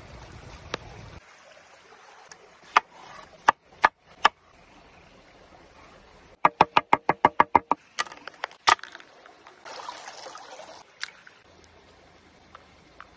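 Knife cuts on a wooden cutting board: scattered sharp taps, then a fast even run of chops, about ten a second for just over a second, in the middle. A short crackly rustle follows, as dried red chili pepper is crumbled by hand.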